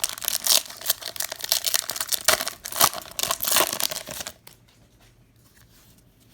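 A trading-card pack wrapper being torn open and crinkled by hand: a burst of crackling rustle for about four seconds that stops abruptly.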